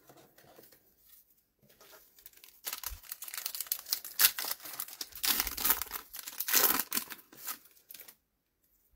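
Trading card pack wrapper being torn open and crinkled by hand. A run of crackling starts about a third of the way in, swells twice, and stops near the end.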